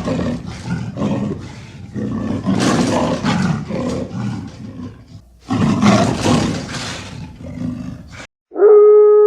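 Lion roaring in three long, rough bouts, the last one cutting off suddenly. Near the end a different, clear and steady pitched call starts and falls slightly in pitch.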